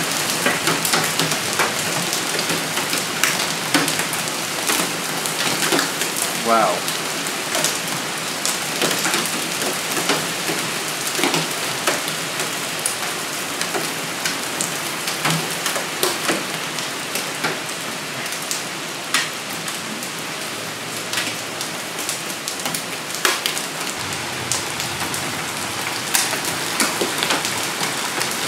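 Heavy thunderstorm rain pouring steadily, with hailstones striking the ground and hard surfaces as frequent sharp clicks and knocks over the hiss of the downpour.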